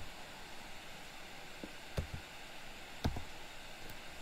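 A few sharp clicks of computer keyboard keys and a mouse button, the clearest about two and three seconds in, over a steady hiss of microphone noise.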